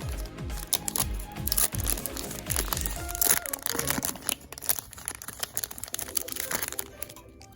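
Foil wrapper of a Pokémon card booster pack crinkling and tearing as it is opened and handled, with a dense run of crackles that dies away about seven seconds in. Background music plays underneath.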